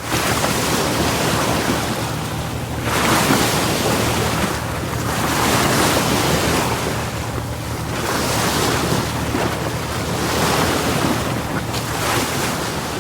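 Ocean waves breaking and washing in, a loud rushing surf that swells and eases every two to three seconds, from a sound-effect recording.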